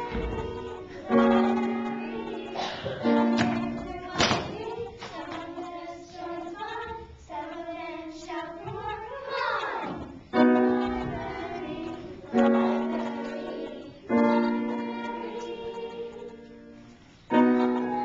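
Piano accompaniment for a children's musical, struck in loud held chords that ring and fade, several times. Children's voices sing over the middle stretch between the chords.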